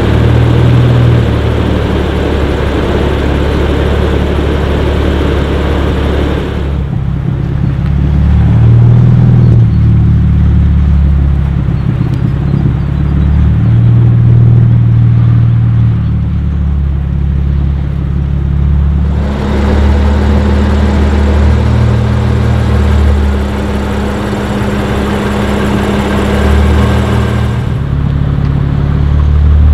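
BMW M2 Competition's twin-turbo straight-six, fitted with TTE740 turbos and an Akrapovic Evolution exhaust with downpipes, running while parked, its exhaust note stepping up and down in pitch as it is revved.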